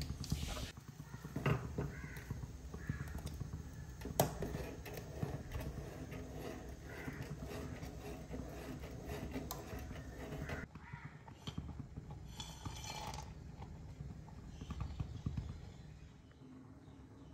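A spoon stirring and knocking in a metal pan of oats on the stove, with a sharp clink about a second and a half in and another about four seconds in, over a low steady hum.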